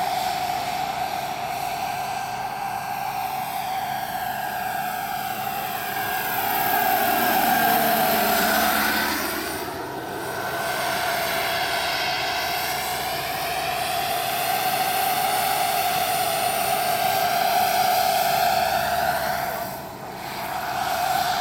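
The JetCat PHT3 turbine of a 1:4 scale Vario EC145 model helicopter running in flight: a steady high turbine whine together with the rotor. It swells as the helicopter passes, loudest about seven seconds in and again in the later part.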